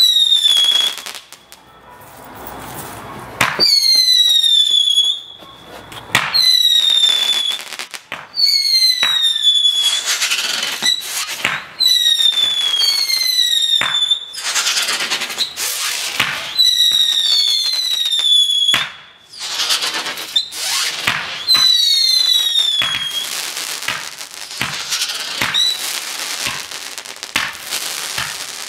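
Cube Ballistic Attack firework candle firing whistling shots one after another: each shot launches with a sharp pop and a short high whistle that falls slightly in pitch. There are about ten of them, with crackling from the bursting effects in between.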